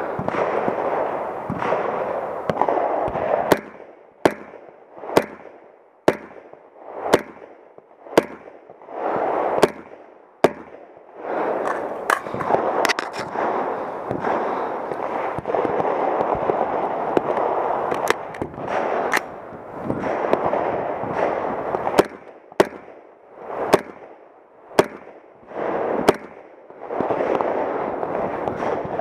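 Shots from an AR-15 carbine in .300 Blackout, fired one at a time at an uneven pace: about twenty in all, some in quick strings and some with pauses of a few seconds, over a steady rushing noise.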